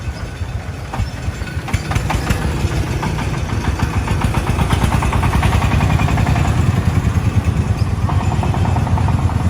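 Diesel engine of heavy work machinery running with a rapid pulsing beat, growing louder about four seconds in. A few sharp knocks come about two seconds in.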